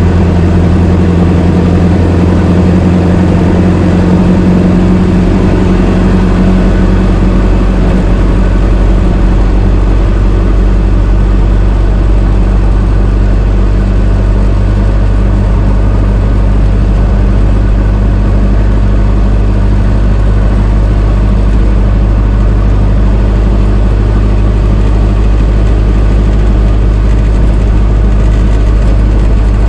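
Old car engine running steadily with a low, even note; its higher tone fades during the first several seconds, leaving a deeper hum.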